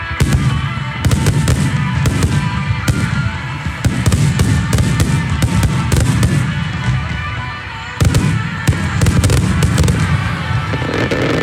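Aerial fireworks shells bursting in quick succession: sharp cracks and booms over a continuous low rumble, with a fresh run of loud bursts about eight seconds in.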